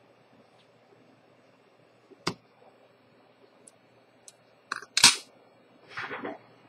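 Small metal watchmaker's tools clicking and tapping on a hard bench: one sharp click, a few faint ticks, a louder clatter of clicks about five seconds in, and a short rough clatter near the end.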